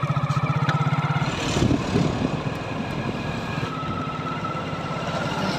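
Road traffic: a motorcycle or scooter engine runs close by in the first second or so, then a steadier din of passing vehicles on a bridge road. A thin steady high tone joins in the second half.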